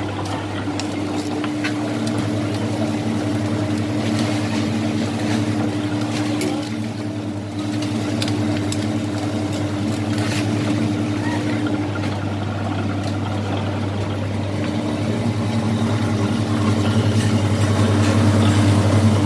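Electric sugarcane juicer running: its motor gives a steady hum while the ridged steel rollers crush a stalk of sugarcane, with scattered cracks and snaps from the cane. It grows louder near the end.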